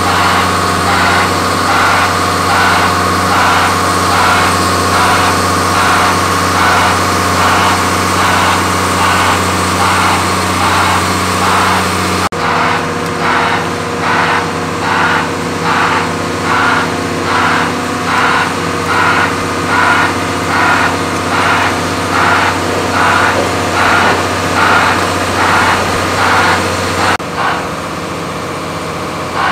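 Engine of a heavy hydraulic grab rig running steadily with a deep hum, with a regular pulsing sound over it about once every three-quarters of a second. The sound changes abruptly about twelve seconds in and again near the end.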